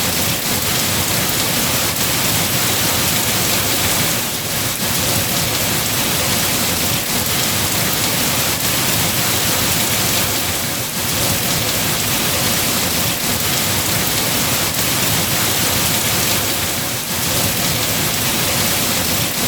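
Steady heavy rain, a dense even hiss of drops falling on surfaces.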